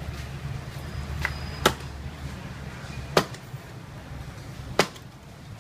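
Three sharp clacks about a second and a half apart, from long chopsticks knocking against a wok of deep-frying dough sticks, over a steady low hum.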